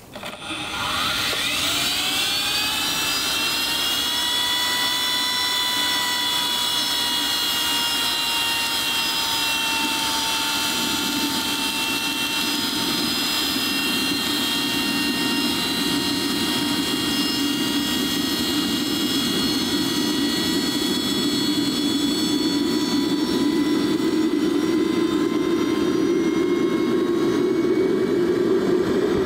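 Small RC turbine jet engine being started on biodiesel: the starter spins it up with a rising whine over the first second or two, then holds it at a steady whine while it preheats. In the last ten seconds or so a low rumble builds as the engine lights and fuel ramps in.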